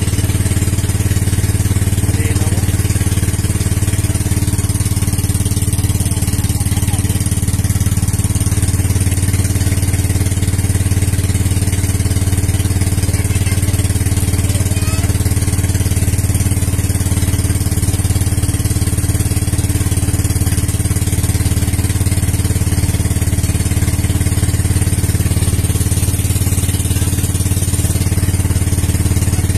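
Outrigger bangka boat's engine running steadily at cruising speed, an even low drone with no change in pace.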